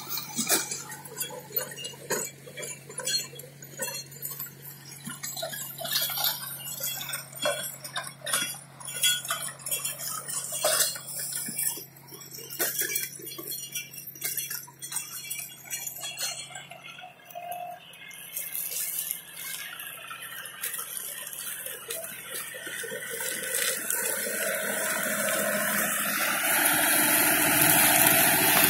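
John Deere 5045 tractor's diesel engine running at a distance as a faint low hum, growing steadily louder through the second half as the tractor approaches. Irregular crackles and clicks are scattered through the first half.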